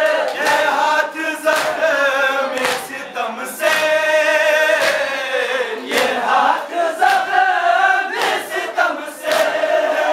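Men chanting a Muharram noha (mourning lament) together, with a steady beat of chest-striking (matam) about once a second.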